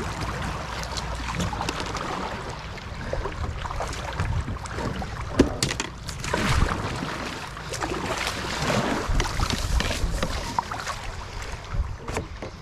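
Kayaks on a shallow river: water splashing and sloshing against the hulls and paddles, with a few sharp knocks, the loudest about five seconds in. Wind rumbles on the microphone throughout.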